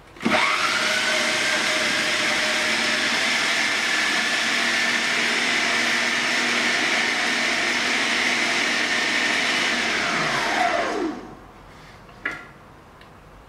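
Electric food processor motor starting with a rising whine, running steadily as it grinds steamed pumpkin and icing sugar into a purée, then winding down with a falling whine about eleven seconds in. A single short knock follows near the end.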